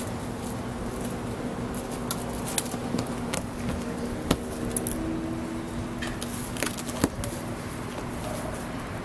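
Two cats play-fighting: a few sharp scratches and taps of claws and paws on concrete, scattered through the middle of the scuffle, over a steady low hum.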